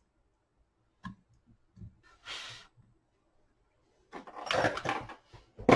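A circuit board being handled after soldering: a sharp click about a second in, a short hiss, then a louder stretch of knocking and rubbing as the board is picked up and moved.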